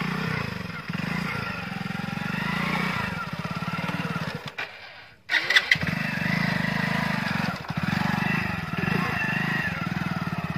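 Hero Splendor motorcycle's single-cylinder engine running and revving under load as the bike is worked through mud. The sound breaks off briefly about five seconds in and comes back with a sharp, loud clatter.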